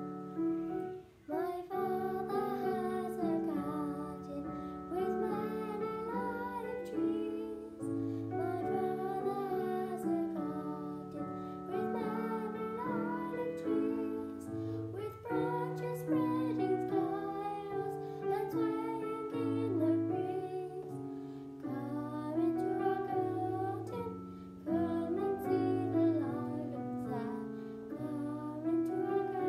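A young girl singing a solo song over piano accompaniment, her voice coming in about a second and a half in.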